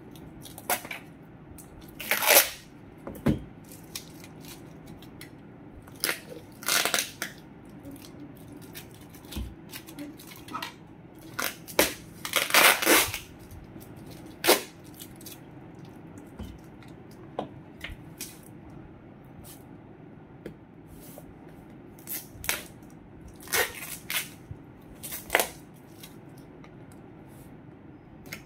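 Intermittent rustling and crinkling of something being handled: about a dozen short, sharp bursts with quiet gaps between them, the loudest about two seconds in and again near the middle.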